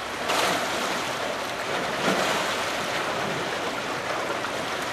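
Choppy river water rushing and washing against shoreline rocks in a steady roar, with no breaks.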